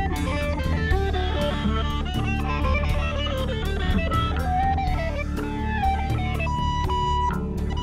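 Live band playing: an electric guitar picks a melodic lead line over bass and drums, and near the end holds a single high note.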